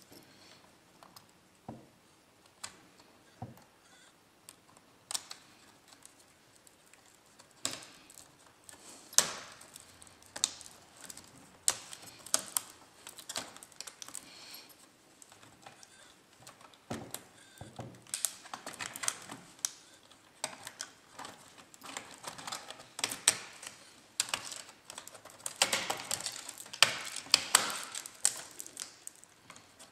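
Irregular small clicks and taps of plastic parts and wires on an HP Pavilion dv6000 laptop being taken apart by hand. The clicks are sparse at first and grow much busier in the second half.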